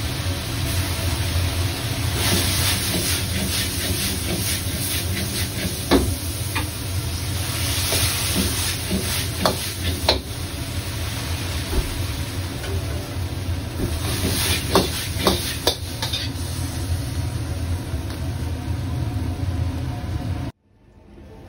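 Okra being stir-fried in a hot pan, sizzling steadily over a low rumble, with a metal spatula clinking against the pan every few seconds. The sound cuts off suddenly near the end.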